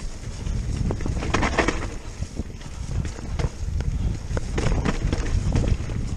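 Wind buffeting the microphone over the rumble of a Giant Stance E+ electric mountain bike's tyres on rough dirt singletrack at speed, with scattered sharp knocks and rattles as the bike hits bumps.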